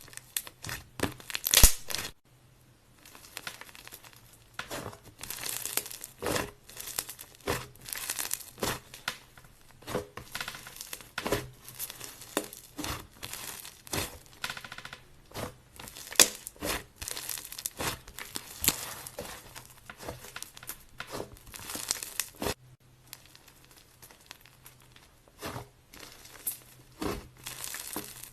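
Clay slime being mixed and squeezed by hand, giving dense, irregular sticky crackles and pops, with brief pauses about two seconds in and again near twenty-two seconds.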